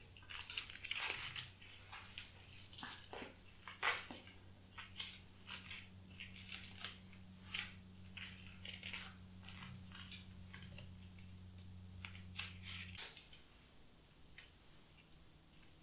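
Close, crisp rustling and crackling of flower stems and foliage being handled and arranged by hand, many short snaps and crinkles at irregular intervals. A low steady hum sits underneath and stops about thirteen seconds in.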